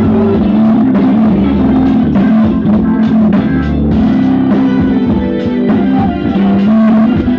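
Loud music with guitar, bass and drums played through a loudspeaker driven by a 5200-transistor power amplifier under a sound test.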